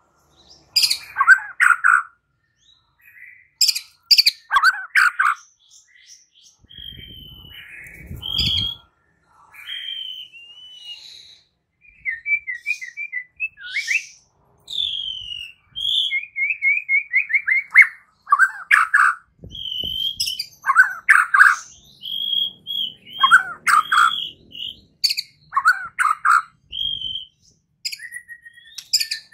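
White-rumped shama singing a varied song of clear whistled notes, quick trills of falling notes and harsh clicking chatter.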